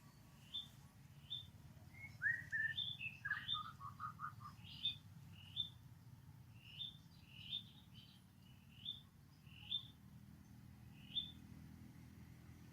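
Repeated short, high chirps, one or two a second, with a brief run of lower, quicker calls between about two and four and a half seconds in, over a faint steady low hum.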